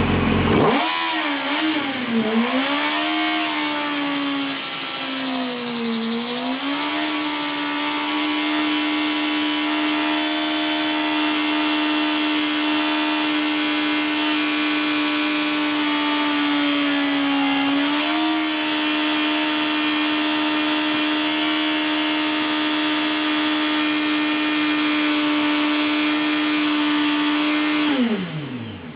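2005 Yamaha R1's inline-four engine revving hard during a burnout, spinning a bald rear tyre: the revs climb and waver for the first few seconds, then hold high and steady with one brief dip, and drop away sharply near the end.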